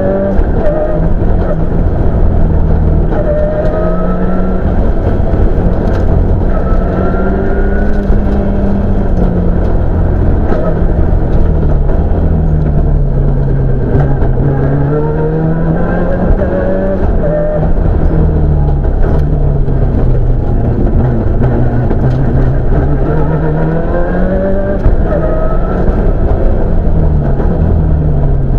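Toyota Celica rally car's engine heard from inside the cabin at stage pace, revving up and down as it accelerates, shifts and slows between corners, its pitch rising and falling again and again.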